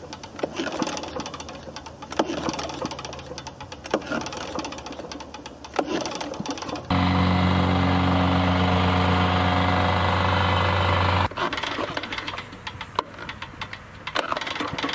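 Small petrol engine of a vibratory plate compactor idling with a loose rattle, then running at full speed from about seven seconds in, a loud steady drone for about four seconds, before dropping back to idle.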